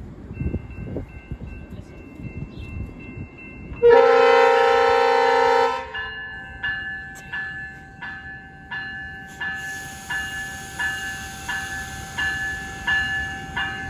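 Passenger train horn sounding one long blast about four seconds in, then a bell ringing steadily about twice a second, with a steady hiss joining near the middle.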